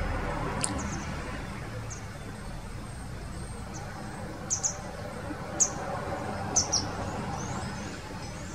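European goldfinch calls: short, high chirps, a few scattered through and a couple in quick pairs around the middle, over a steady low background rumble.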